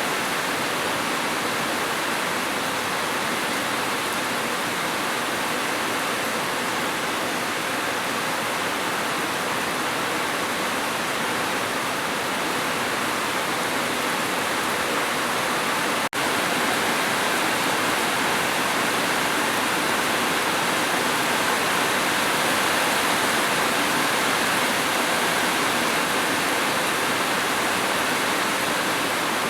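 Steady heavy rain, an even hiss with no distinct drops standing out, which cuts out for an instant about halfway through.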